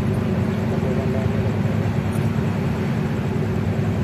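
Steady low rumble of a large passenger ship's diesel engines running as it gets under way from the quay after casting off, with a faint steady hum over it.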